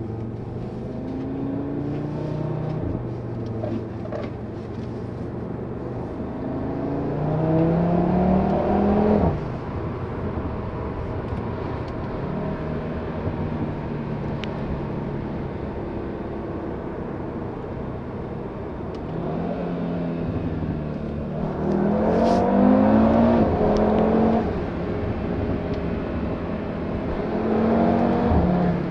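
Audi RS3's turbocharged five-cylinder, with no particulate filter and its resonator deleted, accelerating hard three times. Each time the revs climb for a few seconds and then drop off suddenly, and there is a sharp crack at a gearshift partway through the second run.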